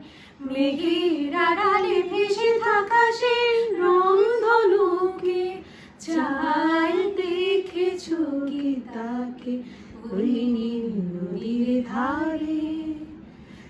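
A woman singing a Bengali song unaccompanied, in long held, gliding notes, with a short breath about six seconds in.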